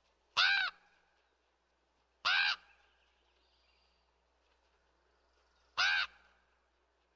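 Raven calling: three short, harsh caws, the second about two seconds after the first and the third about three and a half seconds later, each rising and then falling in pitch.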